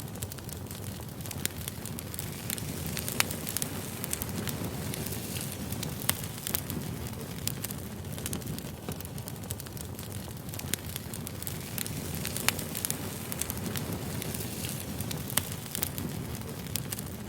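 Firewood burning: a steady low crackle with sharp pops every few seconds.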